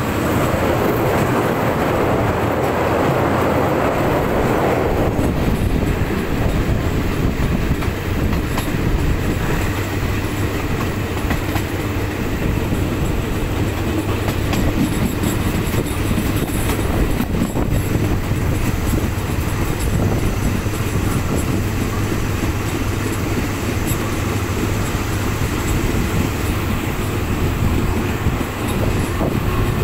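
Train running on the rails with a steady low rumble, loud throughout, with a broad hiss that fades out about five seconds in.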